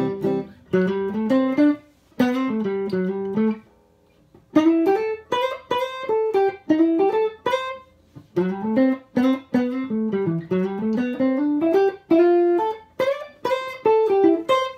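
1965 Fender Telecaster electric guitar playing single-note licks on the C major pentatonic scale, sliding up into notes from a fret below instead of bending them. It plays in several short phrases with brief pauses between them.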